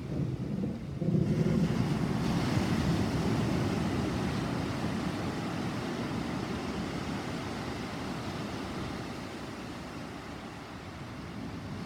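Thunder from a night storm: a rumble that swells suddenly about a second in, then rolls on and slowly fades over the next nine seconds.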